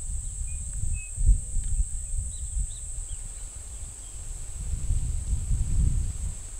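Gusty low rumble of wind on the microphone over a steady high-pitched insect drone, with a few faint short bird chirps.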